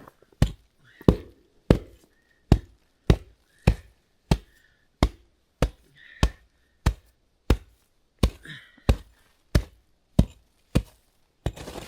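Steady, evenly paced chopping blows, about eighteen strikes at roughly one every 0.6 seconds, like an axe or hatchet cutting wood at camp.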